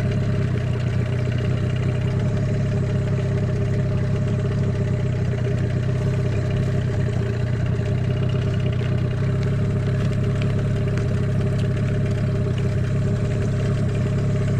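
Hidea 15 hp outboard motor idling steadily, an even low hum that does not change in pitch.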